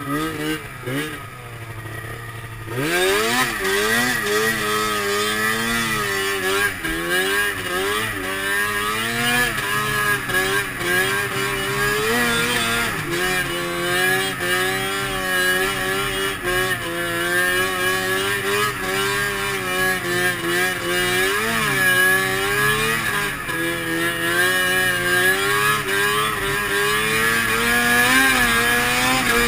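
Arctic Cat M7 snowmobile's two-stroke twin engine running under throttle. It opens up about three seconds in, then its pitch keeps rising and falling as the rider works the throttle through the snow.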